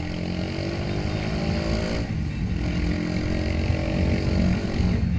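Haojue Chopper 150's single-cylinder four-stroke engine accelerating, its pitch rising and dropping about two seconds in as it shifts up a gear, then rising again before another shift near the end.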